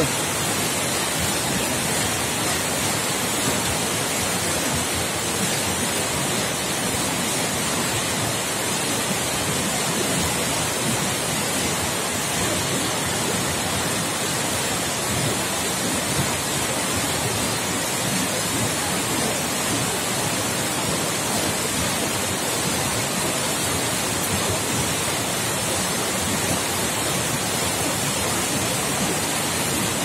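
Paltau waterfall in a narrow rock gorge: a steady, unbroken rush of falling water.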